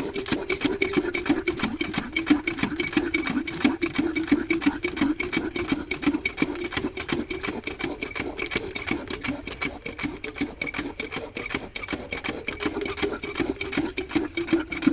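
Diesel engine of a water pumpset running with a fast, even clatter.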